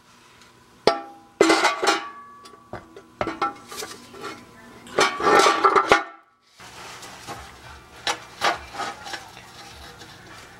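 Loose metal car parts and tools clinking and rattling as they are handled: a sharp clank about a second in, two bursts of clattering with short metallic ringing, about one and a half and five seconds in, then lighter clicks.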